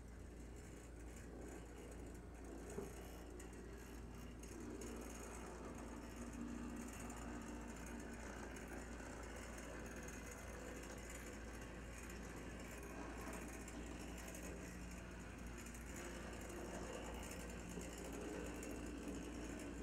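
HO-scale brass model 4-6-6-4 Challenger steam locomotive running along the track: faint steady whir of its can motor and drive gearing, with light rattling and ticking of the wheels and running gear on the rails and a sharper click about three seconds in.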